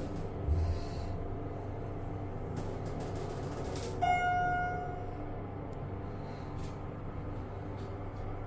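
Schindler elevator car travelling down with a steady low hum. There is a soft thump about half a second in, and a short pitched tone, like a chime or beep, about four seconds in.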